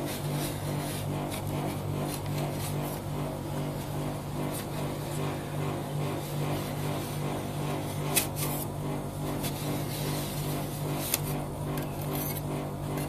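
Fried (rolled) ice cream machine humming steadily, its refrigeration unit running under the cold pan, while a metal scraper scrapes ice cream into rolls on the steel pan with a few sharp clicks, the loudest about 8 s in.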